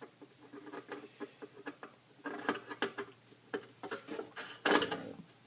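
Flat-blade screwdriver working screws out of a plastic tube radio: a run of small irregular clicks, taps and scrapes of metal on metal and plastic, with a louder short rattle near the end.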